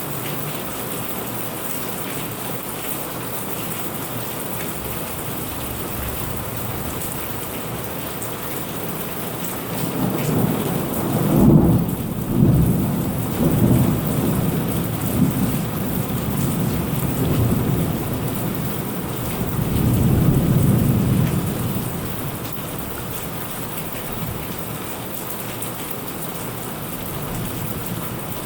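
Steady rain falling, with a long roll of thunder that builds about ten seconds in, peaks with a couple of louder cracks and rumbles on for around twelve seconds before fading back to rain alone.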